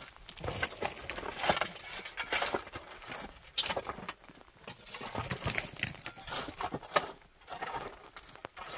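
A series of irregular knocks and clicks, unevenly spaced.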